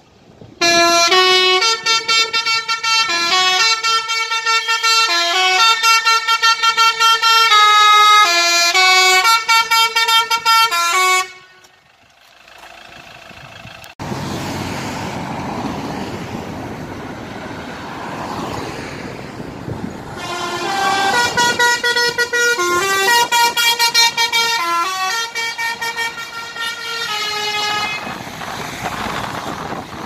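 A multi-note musical vehicle horn plays a fast tune of stepped notes for about ten seconds. After a break, steady road traffic noise follows, with a second musical horn tune over it from about 20 to 28 seconds in.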